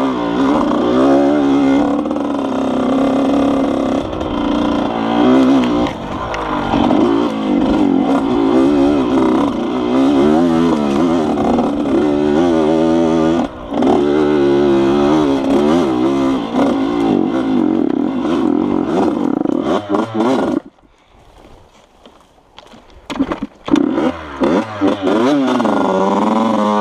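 Yamaha YZ80 single-cylinder two-stroke dirt bike engine being ridden, its pitch rising and falling constantly with the throttle. About twenty seconds in, the engine sound drops away for a couple of seconds, then comes back with a few sputters and runs on.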